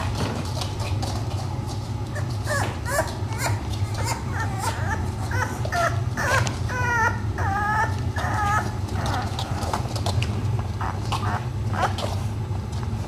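Seven-week-old French bulldog puppies whimpering and yipping: a run of short, high, wavering calls from about two and a half to nine seconds in, with scattered small knocks and a steady low hum underneath.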